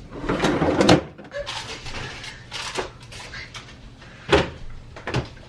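Kitchen handling sounds as groceries are put away: a rustle for about the first second, then a few sharp knocks and clicks of cupboard doors and containers, the loudest about four and a half seconds in.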